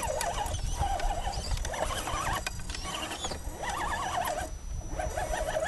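Electric motor and drivetrain of an Axial SCX10 radio-controlled rock crawler whining as it climbs, the pitch rising and falling several times a second as the throttle is worked, dropping out briefly twice.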